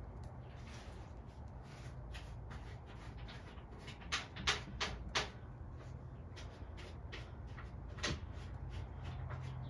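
Light clicks and knocks of the mower's plastic air filter housing and cover being handled and fitted: four in quick succession about four seconds in, one more near eight seconds. A low steady hum runs underneath.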